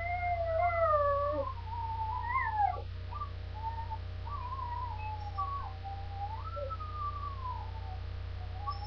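Dog whining in long, high, wavering tones that slide up and down in pitch. The whining is loudest in the first three seconds and thinner after, over a steady low hum.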